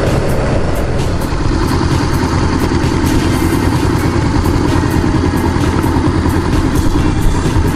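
Honda CBR400R's 399 cc parallel-twin engine running steadily, mostly idling with the bike stopped.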